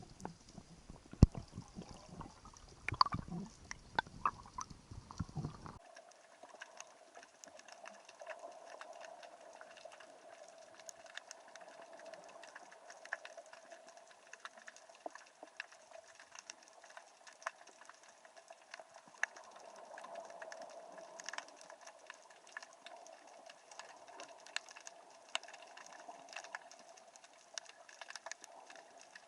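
Irregular knocks and clicks for the first few seconds, then a sudden change to a faint steady hiss dotted with many small crackling clicks.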